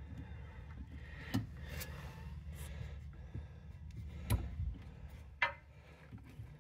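Scattered clicks and small metallic knocks of pliers working on a motorcycle's rear brake pedal and its return spring, the sharpest about four and five and a half seconds in, over a steady low hum.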